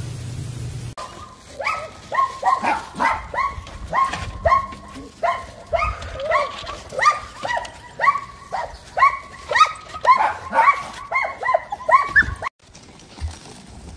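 A dog barking over and over, about two short, high barks a second. The barking stops abruptly near the end.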